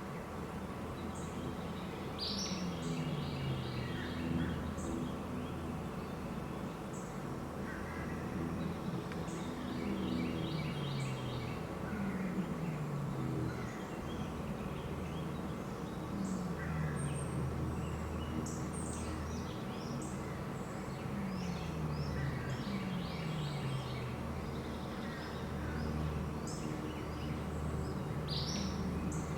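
Songbirds chirping and singing outdoors over a steady low rumble, with a low call falling in pitch repeated every second or two.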